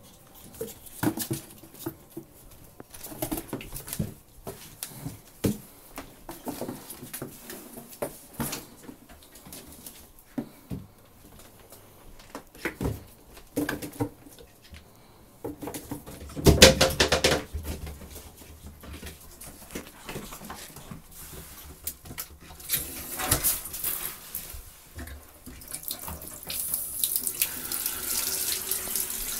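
Ferrets scampering: quick clicks of claws and light bumps on the floor and a cardboard box, with a brief louder burst about two-thirds of the way in. In the last few seconds a bathtub faucet runs steadily.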